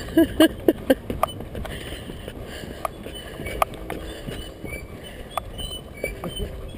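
Footsteps on a wooden suspension-bridge deck: scattered irregular knocks and creaks over a steady hiss of wind. Brief voices are heard in the first second.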